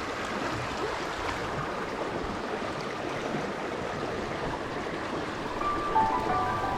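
Trout stream water running over rocks, a steady rushing. Background music with sustained notes fades in near the end.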